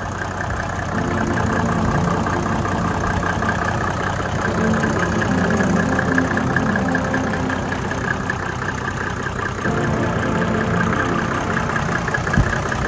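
Mercedes OM606 three-litre straight-six diesel idling steadily in a Sprinter engine bay.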